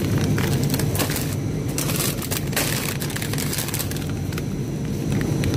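Plastic packaging of frozen chicken crinkling and rustling in the hand in irregular spurts, thickest in the middle, over a steady background hum.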